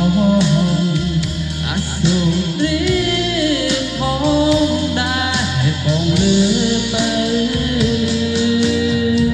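A song playing: a voice singing a winding melody over guitar, bass and a steady drum beat.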